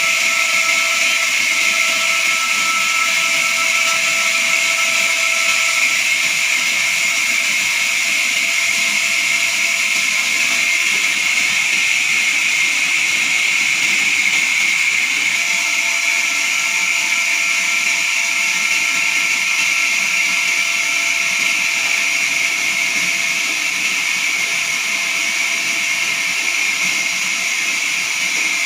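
Horizontal band sawmill blade cutting through a jackfruit log: a steady, high-pitched hiss of the saw in the wood with a faint whine underneath, unbroken throughout.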